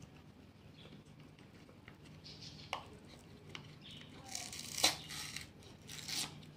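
Cat lapping milk from a glass jar: scattered soft wet clicks, with louder crackly bursts about four to five seconds in and again near the end.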